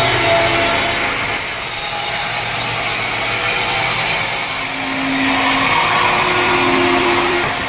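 Sawmill saw cutting through a teak log: a loud, steady rasping noise with wavering whine tones. The high-pitched cutting noise drops off sharply near the end.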